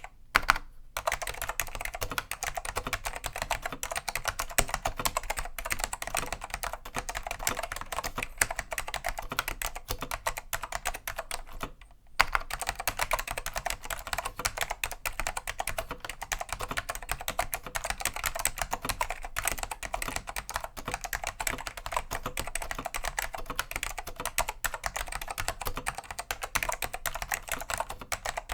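Continuous fast typing on a Dell AT101 keyboard with tactile Alps SKCM Black "pine" switches, cleaned and unlubed, making a dense run of clacking keystrokes. The typing pauses briefly twice, about half a second in and about twelve seconds in, and resumes each time with a louder key strike.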